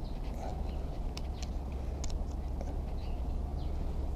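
Side cutters working a small steel bracket off an aluminium heat-sink plate: scattered small metallic clicks and scrapes over a steady low hum.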